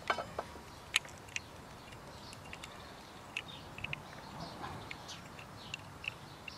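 A few sharp clicks in the first second and a half, the loudest about a second in, as the pad pin is worked into a motorcycle front brake caliper. Birds chirp faintly in the background throughout.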